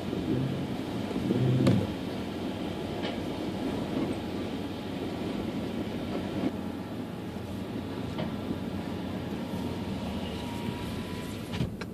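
Steady car-cabin noise: engine and tyres on a wet road, with a windshield wiper sweeping across the glass about a second in and a few light clicks later.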